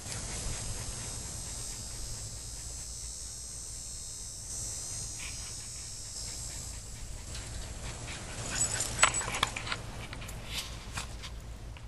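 Small terriers faintly whimpering, with a cluster of short sharp sounds in the last few seconds, over a steady low rumble.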